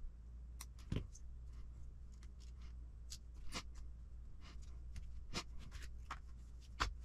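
Faint, scattered clicks and light knocks of small plastic kit parts and needle-nose pliers being handled, with the firmest knock about a second in.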